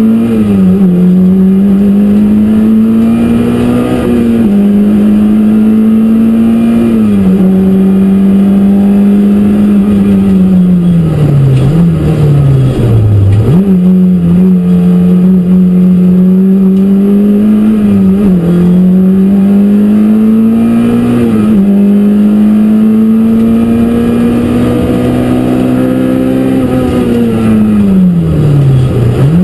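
Peugeot 205 Rallye Group A car's four-cylinder engine, heard from inside the cabin, driven hard. The revs climb steadily in each gear and drop back slightly at quick upshifts. Twice, near the middle and near the end, they fall away a long way before climbing again.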